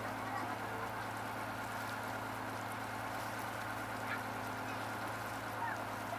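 Landing craft's engine running at a steady cruising drone as the boat moves along the river. A couple of short bird calls come through about four seconds in and again near the end.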